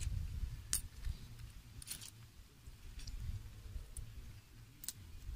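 Coins clinking as they are picked up one at a time and added to a handful of coins: a few sharp separate clinks a second or more apart, over a low rumble.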